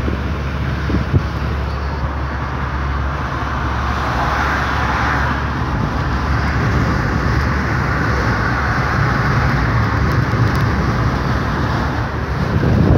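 Road noise inside a moving car: steady engine and tyre rumble with a rushing hiss, which grows a little louder for a couple of seconds around four to six seconds in.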